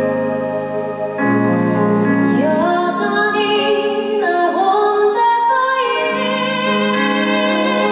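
A woman singing a slow ballad live into a handheld microphone over instrumental accompaniment. Sustained chords run throughout, and her voice comes in with vibrato a couple of seconds in.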